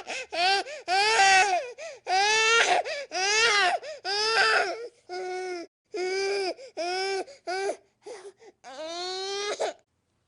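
Infant crying in a run of short wails, each rising and falling in pitch, with quick breaths between. The cries grow softer after about five seconds, and the last is a longer wail that rises in pitch.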